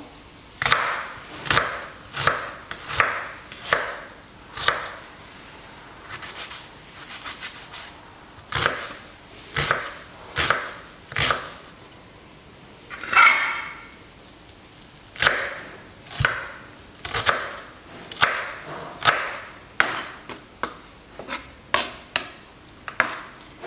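Kitchen knife chopping red onion on a wooden cutting board: irregular knocks of the blade hitting the board, about one or two a second. There is a pause of a few seconds after about five seconds, one longer, louder stroke about halfway through, and quicker chops near the end.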